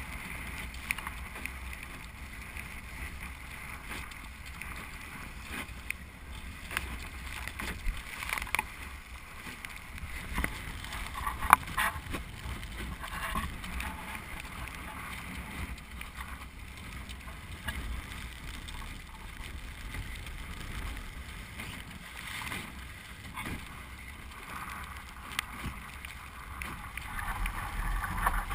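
Small sailboat sailing fast in strong wind: steady wind buffeting the microphone over water rushing along the hull, with scattered slaps and knocks of spray and chop. One sharp hit stands out about eleven and a half seconds in.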